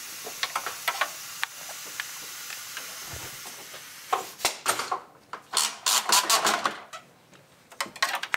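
A steady hiss with light clicks over it, cutting off about halfway through. Then a few seconds of irregular clicking and clattering as small engine parts and tools are handled in the engine bay.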